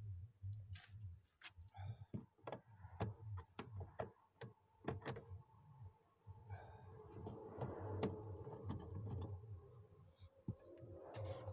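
Scattered sharp clicks and taps of hand work on a car door's interior panel and plastic trim, with a few seconds of scraping about halfway through.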